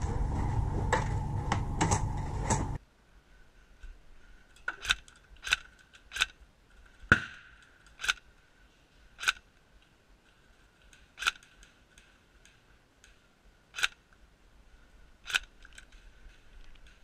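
Airsoft rifle firing single shots: about nine sharp snaps at uneven intervals, over a faint steady high hum. The first three seconds hold a loud rushing noise that stops abruptly.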